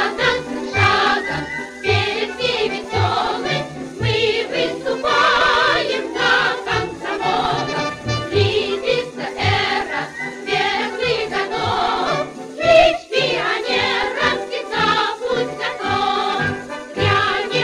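A choral song over a steady bass beat.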